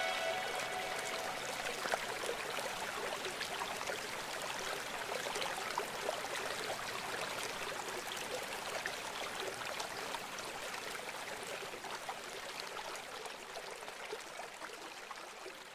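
Steady rushing hiss of running water, slowly fading away.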